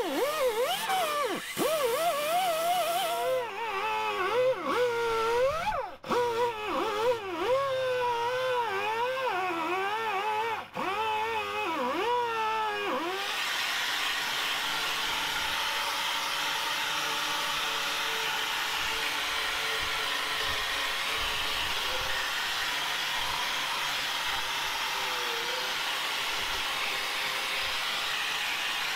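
Small air-powered wire brush scrubbing rust off a cast-iron casting, its whine rising and falling as it bogs and frees up against the metal. About 13 seconds in it gives way to a DeWalt angle grinder with a wire cup brush, running steadily as it scrubs rust and scale from the casting.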